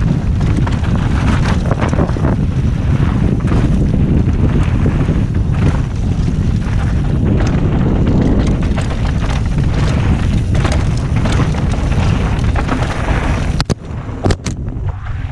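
Wind buffeting the microphone of a helmet-mounted GoPro Hero5 Session during a fast mountain bike descent, with tyres running over dusty gravel and dirt and the bike rattling over bumps. Near the end the wind drops briefly and a few sharp clacks stand out.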